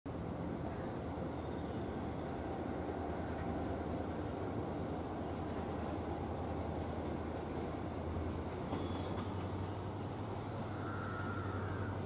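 Steady low hum of a WDG4 diesel locomotive's EMD two-stroke V16 engine as it approaches slowly, a little louder in the second half. A bird calls in short high chirps every two to three seconds.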